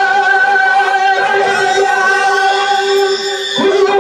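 Singing with long, steady held notes, the pitch changing just before the end.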